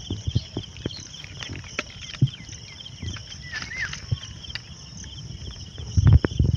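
Insects chirping steadily in a fast pulsing trill, over close rustles and soft knocks of a nylon mesh fishing net being handled and untied. A cluster of louder low thumps comes about six seconds in, as the net's bag end is lifted.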